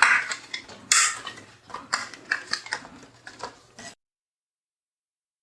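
Sharp clicks and clattering from hard computer parts being handled as a DDR3 RAM stick is taken up. The sound cuts off abruptly to dead silence about four seconds in.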